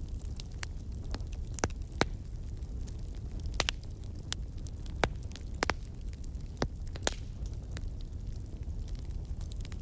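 Ballpoint pen on textbook pages: irregular sharp clicks and light scratches as the pen touches down and underlines, over a steady low hum.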